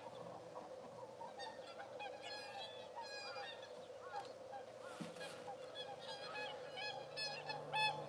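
A mixed flock of swans and red-crowned (Japanese) cranes calling: many short calls overlapping without a break, from many birds at once.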